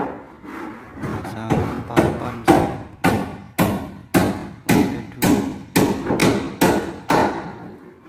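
Hammer striking nails into wooden fin boards on ceiling beams: a steady series of about a dozen sharp blows, roughly two a second, each ringing on briefly. The blows start about a second in and stop near the end.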